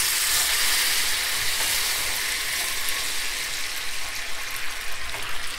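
Hot oil and melting brown sugar sizzling in a frying pan as water is poured in and stirred with a wooden spoon: a steady hiss that slowly eases off.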